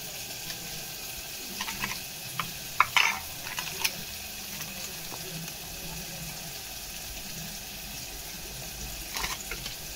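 Onion-tomato masala sizzling steadily in a pan. A spoon clinks against a steel bowl of spice powders several times in the first few seconds and once more near the end.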